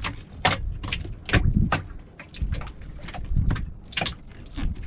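A string of irregular sharp knocks and swishes over a low rumble as a fishing handline is hauled in by hand on a wooden outrigger boat, the line and hands working against the boat's wooden rail.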